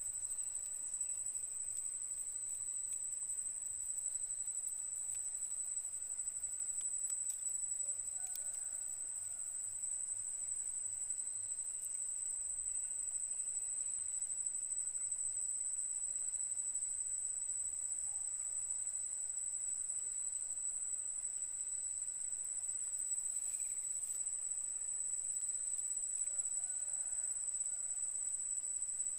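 A steady, high-pitched insect trill that does not vary, with a few faint chirps from birds.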